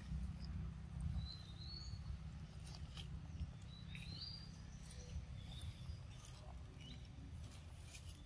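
Quiet forest ambience with a steady low rumble, two faint rising bird chirps about one and four seconds in, and scattered faint wet clicks of a pig-tailed macaque chewing mango.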